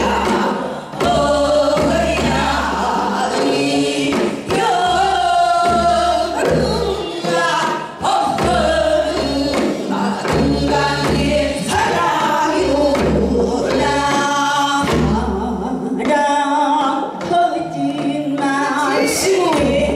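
Women singing Korean traditional song into microphones, one voice taking over from another, in a wavering, ornamented line with accompaniment underneath.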